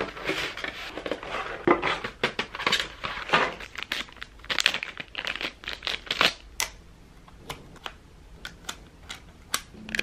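Paper and clear plastic packaging being handled, rustling and crinkling, with many sharp clicks and taps. The handling is busy for the first six seconds or so, then thins to scattered clicks.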